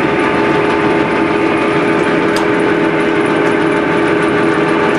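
Blanchard 20K-36 vertical spindle rotary surface grinder running, its 30-hp spindle motor turning the 20-inch segmented grinding wheel while the 36-inch magnetic chuck rotates at its top speed of 27 RPM. The sound is a loud, steady machine hum, with one short tick about two and a half seconds in.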